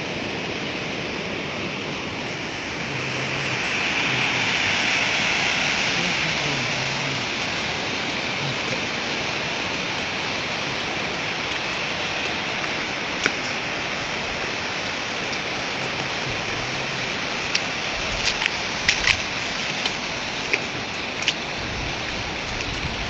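Floodwater rushing down a wadi in flash flood: a steady wash of water noise that swells a little about four to six seconds in. A few sharp clicks come near the end.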